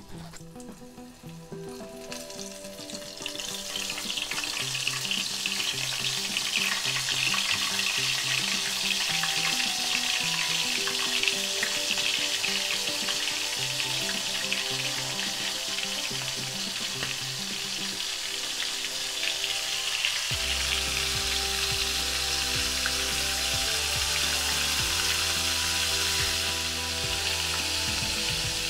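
Breaded prawns deep-frying in hot oil in a kadai: a dense, steady sizzle that swells over the first few seconds as the pieces go into the oil, then holds.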